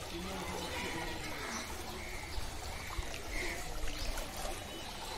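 Muddy floodwater running through a street in a steady rush.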